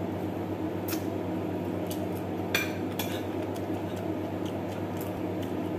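Light clicks and clinks of a plate and utensils as rice and chicken are eaten by hand: a few sharp, separate ones a second or so apart, the loudest about two and a half seconds in, over a steady low hum.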